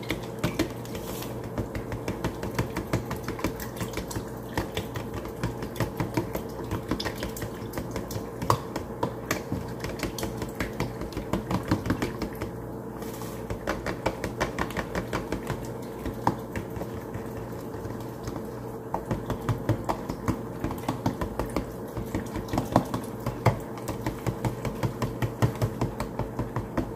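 A fork whisking eggs, water and melted butter in a plastic bowl: fast, uneven clicking of the tines against the bowl, over a faint steady hum.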